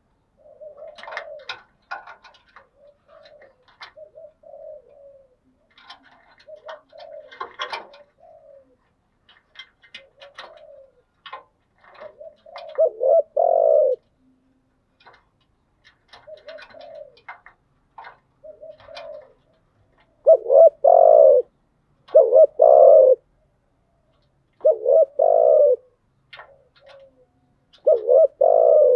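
Spotted dove cooing. Soft, low coos come with scattered faint clicks, then from about halfway there is a series of loud two-part coos every two to three seconds.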